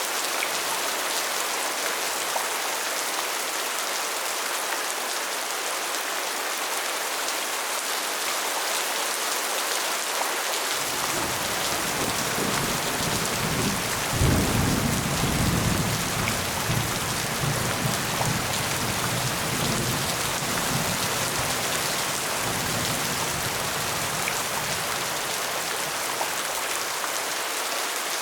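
Steady rain falling, with a long rolling rumble of thunder that comes in about a third of the way through, is loudest just after the middle and slowly dies away near the end.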